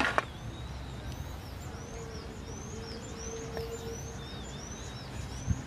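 A cleaver chopping raw chicken on a wooden chopping board: two sharp knocks at the start and a duller thump near the end. Between them a bird chirps over and over in the background, short high rising-and-falling calls.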